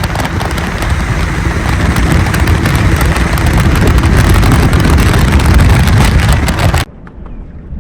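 Loud rush of wind buffeting the microphone as a bass boat runs at speed, cutting off suddenly about seven seconds in.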